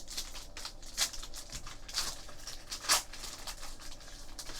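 Trading card packs being handled and opened: crinkling, rustling wrappers with sharper crackles about one, two and three seconds in.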